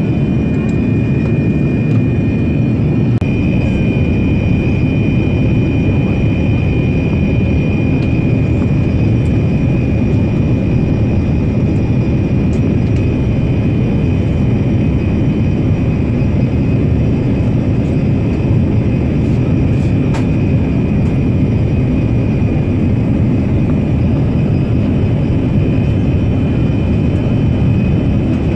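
Steady roar of a Boeing 787 Dreamliner in flight, heard inside the cabin at a window seat: jet engine and airflow noise with a thin, steady high whine that grows a little stronger a few seconds in.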